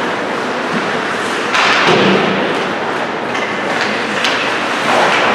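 Ice hockey game heard in a rink from the stands: a steady wash of skates on the ice, a louder surge of crowd and rink noise about two seconds in, then a few sharp clacks of sticks and puck.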